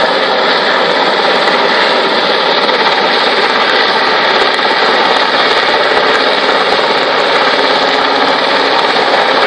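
Yellow RAF Westland Sea King search-and-rescue helicopter hovering low, its twin turbine engines and main rotor making a loud, steady, unbroken sound.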